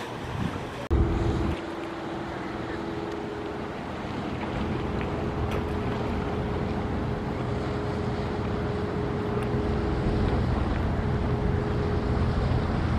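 Motorboat engine running with a steady drone that slowly grows louder, over wind on the microphone and lapping water. A brief loud knock comes about a second in.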